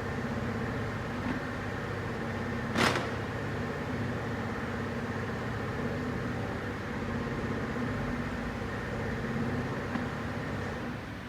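A motor running steadily, with one sharp clink about three seconds in.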